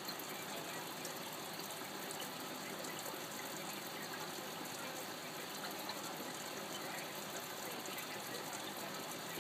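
Steady running and trickling of aquarium water, with a fine fizzing crackle.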